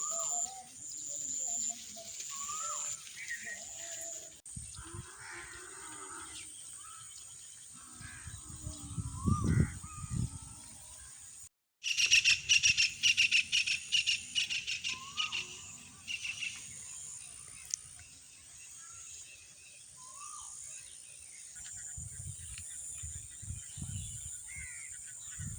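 Birds calling and chirping, with scattered short whistled notes. About halfway through comes a few seconds of dense, rapid chirping. A thin, steady high-pitched tone runs underneath.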